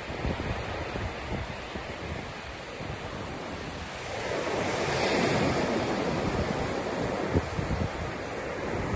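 Surf breaking and washing up a flat sandy beach, a steady rush that swells about halfway through as a wave comes in. Wind buffets the microphone with a low rumble.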